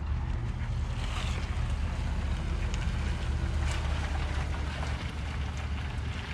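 Steady low rumble, with light scattered clicks and scrapes of small metal parts as the screws of an RV door-lock latch are taken out with a Phillips screwdriver.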